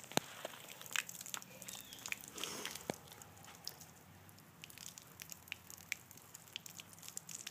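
Water dribbling and dripping from a garden hose nozzle onto a wet concrete patio, with scattered small irregular taps and clicks as the hose and nozzle are handled.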